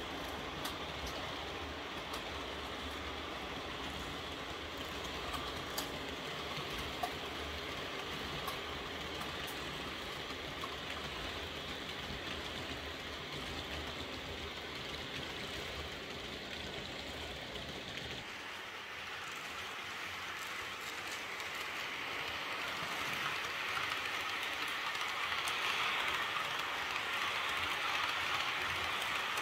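Model electric locomotive and passenger coaches rolling along model railway track: a steady running and rolling noise with small clicks from the wheels on the rails. About two-thirds of the way through, the sound changes to a brighter, louder rolling hiss with less low rumble.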